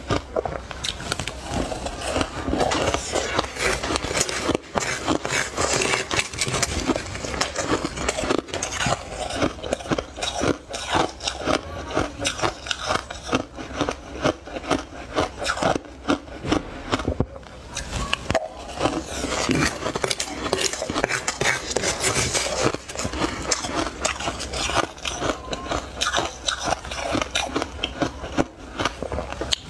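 Close-up chewing of soft, snowy frost ice: a dense, continuous run of crisp crunches and crackles.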